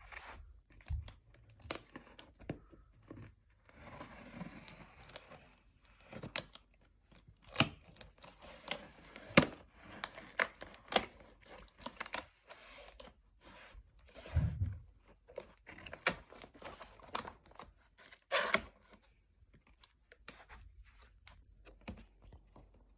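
Cardboard laptop box being opened by hand: tape and cardboard tearing and packaging crinkling, with irregular sharp clicks, knocks and scrapes.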